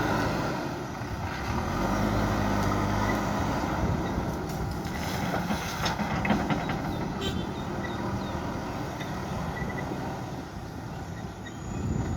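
Diesel engine of a JCB 3DX backhoe loader running steadily, its pitch shifting a few times, with a few short clanks and rattles around the middle.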